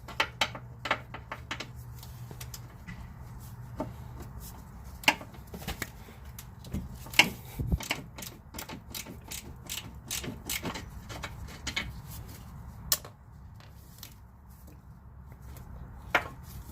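Ratchet wrench clicking in uneven runs as it backs out the front bolt of a front sway bar bushing bracket.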